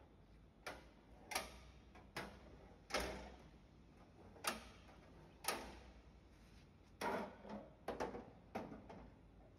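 Sharp metallic clicks and knocks from handling a hinged metal camper-box panel, with its latch, hinges and folding support arm. About a dozen knocks come at uneven intervals, each ringing briefly, and they bunch together near the end.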